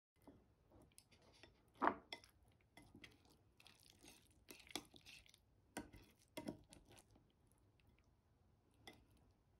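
Metal chopsticks and a spoon clicking and scraping against a dish while stirring sticky flat glass noodles and set cheese. Irregular light clicks, the loudest about two seconds in.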